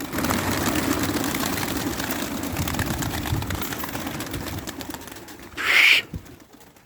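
A flock of domestic pigeons crowding over scattered grain, with a dense pattering of pecks and scattered grain and some cooing, fading over about five seconds. A short loud rustle comes near the end.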